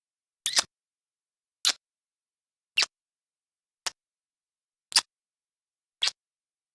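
Kissing sound effect: six short lip smacks, about one a second, each separated by silence.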